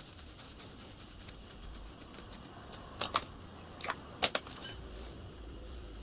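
Small brass pipe fittings (union nuts and olives) clinking against each other and the bench as they are picked up and handled, in a handful of sharp metallic clicks that bunch together between about three and five seconds in.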